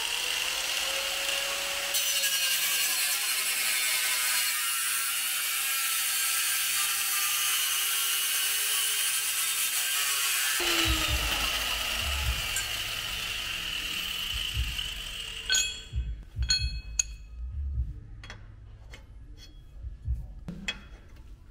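Angle grinder grinding away the brake dust shield behind a rear hub, a loud, steady whine whose pitch drops about ten seconds in. The grinding stops about fifteen seconds in, and a run of sharp clicks and knocks from metal brake parts being handled follows.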